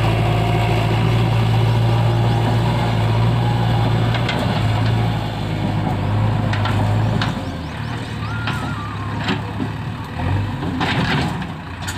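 JCB 3DX backhoe loader's diesel engine running with a steady low drone, which drops in level about seven seconds in. Several sharp knocks follow in the second half.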